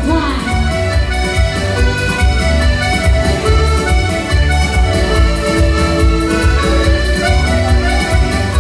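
Live instrumental break from an arranger keyboard: an accordion-voiced melody over a steady, bass-heavy dance beat, played loud through the PA. A last sung note fades out just after the start.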